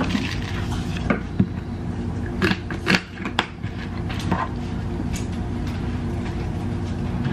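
A few short clicks and taps from spice jars and a plastic zip-top bag of flour being handled on a kitchen counter while seasoning is added, over a steady low hum.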